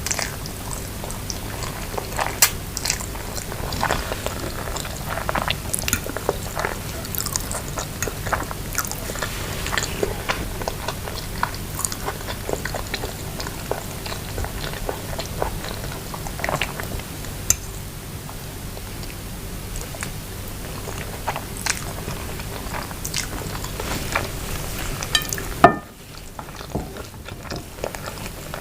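Close-miked chewing and biting of instant noodles with grilled chicken pieces and vegetables: many small, sharp mouth clicks over a steady low hum, with one loud click near the end.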